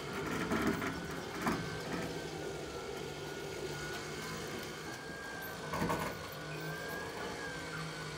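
Electric winch motor whining steadily under load as it pulls a car up the ramps onto a flatbed car trailer, with a clunk about a second and a half in and another near six seconds.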